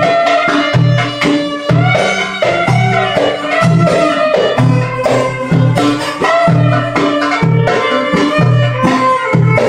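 Live Middle Eastern belly-dance music: a hand drum (darbuka) beats a steady rhythm of deep strikes under a plucked string instrument's melody.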